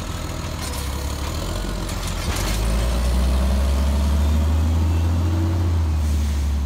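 Heil automated side-loader garbage truck's diesel engine running, with a few sharp knocks in the first two and a half seconds; about two and a half seconds in the engine gets louder and stays up as the truck pulls away.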